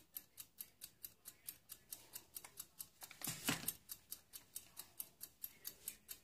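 Steady, fast ticking of a small mechanism, about five ticks a second, with one short louder rustle about three and a half seconds in.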